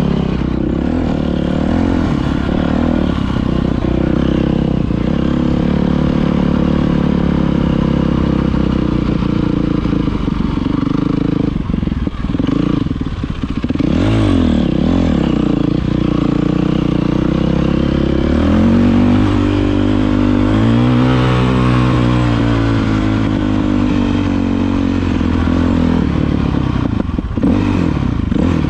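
Yamaha YZ450F dirt bike's four-stroke single-cylinder engine running under way, its revs rising and falling with the throttle, with a dip and pick-up about halfway through and a long rise and fall of revs later on.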